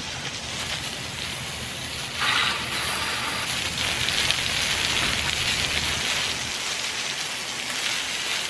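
Garden-hose spray nozzle jetting water onto a small 3D-printed Pelton wheel: a steady hiss and splash of spray off the wheel and the wet pavement. The spray grows louder about two seconds in as the flow is turned up and the wheel spins.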